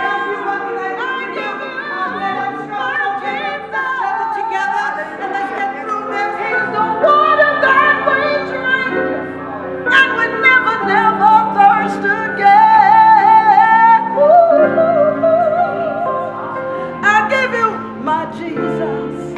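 A woman singing a slow song with strong vibrato over sustained instrumental chords that change every second or two, at its loudest in the middle.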